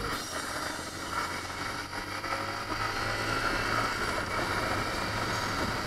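Yamaha MT-15's 155 cc single-cylinder engine running steadily at cruising speed, with wind and road noise on the action camera.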